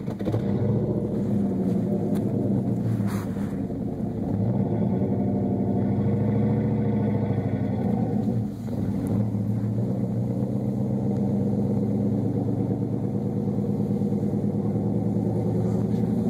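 Dodge Ram pickup's engine running close by. It comes in suddenly at the start and runs steadily, its pitch bending a little and dipping briefly then recovering about eight seconds in.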